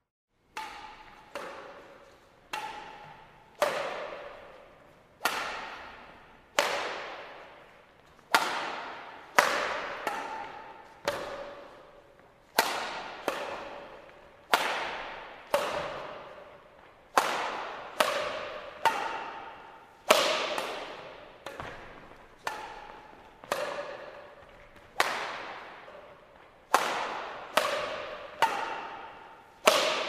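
Background music made of single struck or plucked notes, each with a sharp start that rings away, about one to two a second at varying pitches, beginning after a brief silence.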